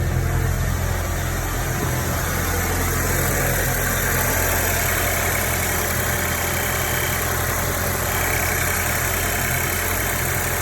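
2007 Audi A4 B7 turbocharged four-cylinder engine idling steadily, with its PCV valve replaced by a delete plate and manifold plug; the idle stays even, with no sign of a vacuum leak.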